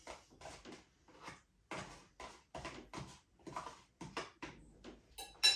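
Handling noise as a cooked ready-meal container is picked up and moved toward the camera: a string of light, irregular knocks and rustles, with one sharper click near the end.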